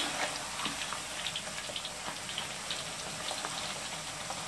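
Thin potato slices deep-frying in hot oil in a wok: a steady sizzle with scattered small crackles and pops as they are turned with a spatula.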